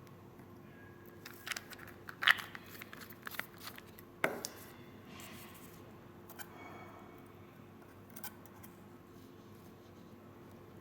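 Small tools and vape parts being handled while an RTA is wicked: a cluster of sharp clicks and taps, loudest about two seconds in, another sharp click about four seconds in, then soft rustling and a few light ticks.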